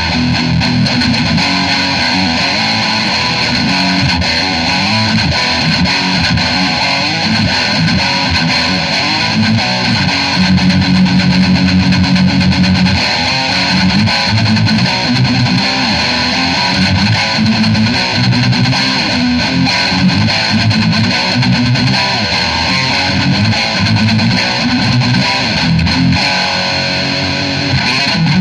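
Distorted electric guitar played through a small practice amp, likely a Marshall MG10CD: a continuous riff of changing low notes.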